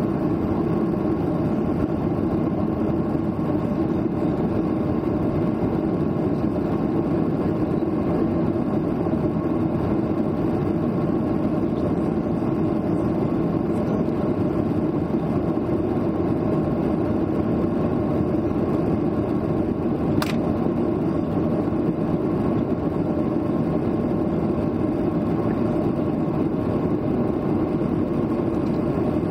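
Steady engine and airflow noise of a jet airliner heard inside the cabin while it climbs out after takeoff, with one brief click about twenty seconds in.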